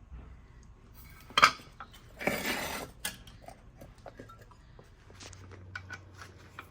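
Metal pieces clanking and rattling as they are handled: one sharp clank about one and a half seconds in, then a rattling scrape lasting under a second, followed by a few lighter clinks.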